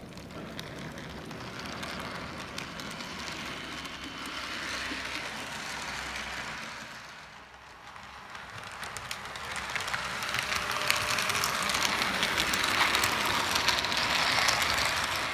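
H0-scale model train, a diesel locomotive hauling freight wagons, running over the track with a steady rattle of wheels and small clicks. It dips about seven seconds in, then grows louder as the wagons pass close by.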